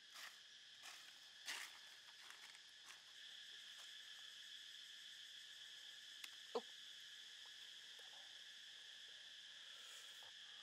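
Faint, steady high-pitched insect chorus. A few soft short rustles come in the first three seconds, and there is one sharp click about six and a half seconds in.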